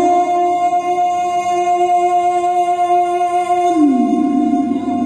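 A man's voice in melodic Quran recitation (tilawah), holding one long, ornamented note. The note stays steady, then slides down in pitch about four seconds in.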